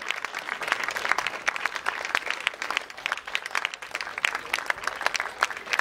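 Audience applauding: dense, sustained clapping from many hands.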